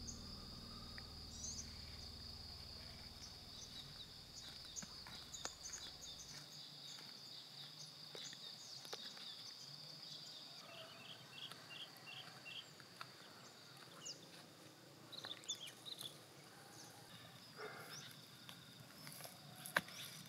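Outdoor ambience of insects: a steady high-pitched drone that thins out about halfway through, with a few short chirped notes over it. A low music drone fades out in the first few seconds, and near the end come crackling rustles and snaps of dry brush underfoot.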